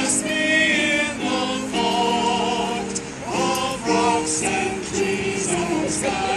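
A small choir singing a hymn, several voices together holding long notes and moving from note to note.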